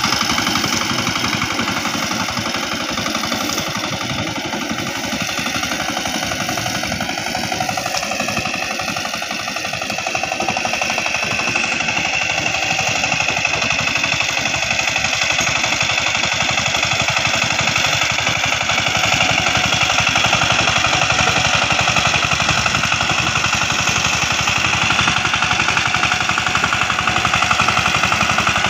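Two-wheel power tiller's single-cylinder diesel engine running steadily with a fast, even chugging as the machine drives through a rice paddy. Its pitch dips briefly about eight seconds in, then steadies.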